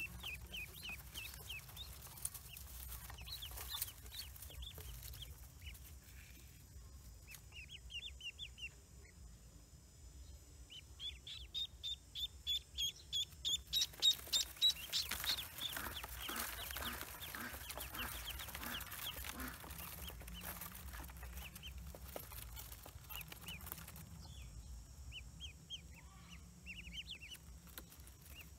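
Newly hatched Pekin ducklings peeping: many short, high-pitched peeps throughout, with a quick, regular run of louder peeps around the middle.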